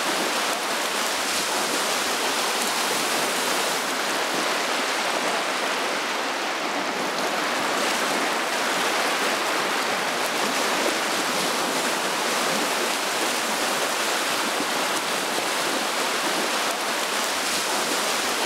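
Steady, even wash of choppy waves on open river water.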